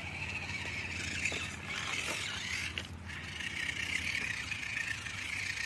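Electric motor and gearbox of a 1/10-scale Barrage RC rock crawler whining steadily as it drives over the course, with a brief dip about three seconds in and a few light clicks.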